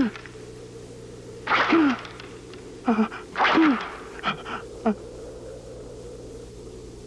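A man's voice in short, breathy vocal bursts, four of them in the first five seconds, then nothing but a steady low hum.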